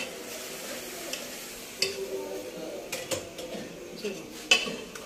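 Metal spoon stirring potatoes and brinjal in an aluminium pressure cooker pot, scraping and clinking against the pot. There are a few sharp clinks, the loudest about four and a half seconds in.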